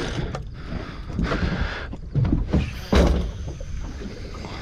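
Sea water slapping and sloshing against a small boat's hull in irregular surges.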